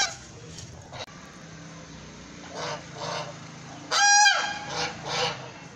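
White domestic geese honking: a series of softer calls, then one loud, clear honk about four seconds in, followed by two more shorter calls.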